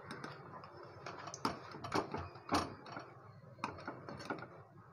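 A metal spatula knocking and scraping against a kadai in a series of sharp clicks as fried bread chops are turned and lifted out of hot oil. The oil sizzles softly underneath.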